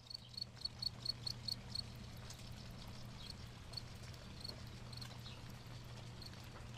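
Cricket chirping: short high chirps, a quick regular run for about the first two seconds, then sparser, over a steady low hum.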